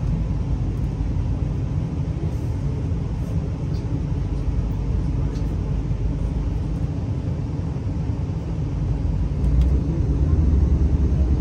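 Steady low rumble heard from inside a V/Line diesel passenger train rolling through the rail yards, with a few faint clicks. It grows louder about three-quarters of the way through.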